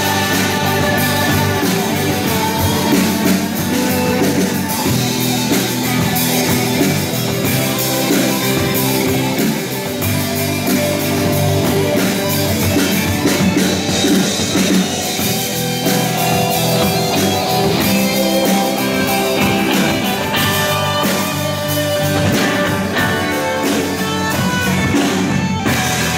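Live rock band playing: electric guitar, bass guitar and a Tama drum kit, with a female vocalist singing into a microphone.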